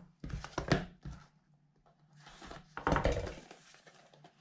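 A small cardboard box handled and opened on a wooden table: a few knocks and thuds, the loudest just under a second in, then a cluster of handling noises about three seconds in.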